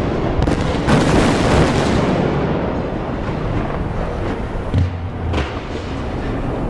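Explosion-like boom sound effect: a deep rumbling blast that swells about a second in and fades slowly, with a couple of further low thuds near the end.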